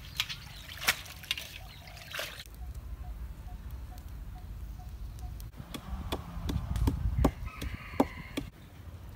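Water splashing as shrimp are rinsed in a bamboo basket, then a wooden pestle knocking in a clay mortar about three times a second. A rooster crows in the background near the end.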